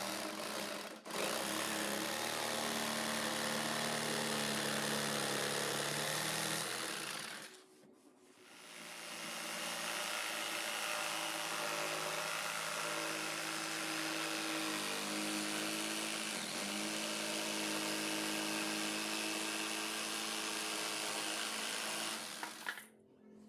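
Electric circular saw running steadily, its motor note shifting as the load changes. It breaks off sharply about 8 seconds in, then runs again until just before the end.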